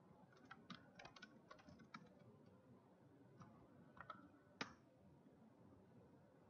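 Faint, scattered computer keyboard keystrokes: a run of taps in the first two seconds, then a few more, the sharpest about four and a half seconds in.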